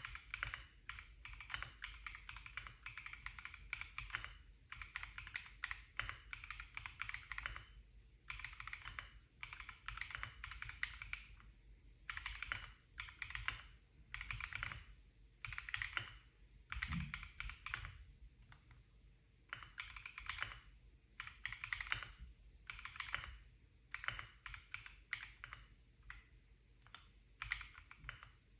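Akko ACR Pro 68 acrylic-cased mechanical keyboard being typed on in quick bursts of keystroke clicks with short pauses between them.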